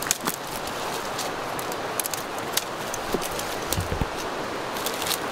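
Steady noise of a stream running, with scattered sharp clicks and rustles of brush and a dull low thump about four seconds in.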